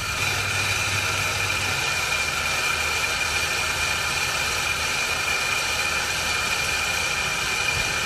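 Steady rush of garden-hose water spraying through a clear Rhino Blaster tank-rinser fitting into a clogged RV black tank's sewer outlet, a constant hiss with a faint high whine. A low hum underneath weakens about two seconds in.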